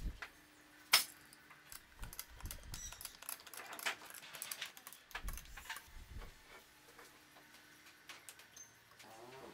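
Small metal clicks and clinks of a spanner tightening the mounting nuts of an electric motor onto a plywood base, with one sharp click about a second in, some scraping and a few dull knocks on the wood.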